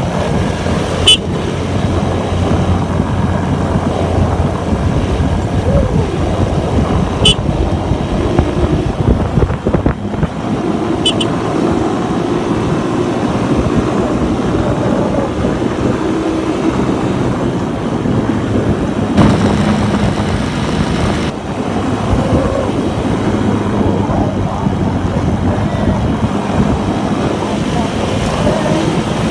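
Suzuki Raider 150's carburetted single-cylinder motorcycle engine running under way, its pitch shifting with the throttle, mixed with wind on the microphone. Three short sharp ticks come in the first dozen seconds.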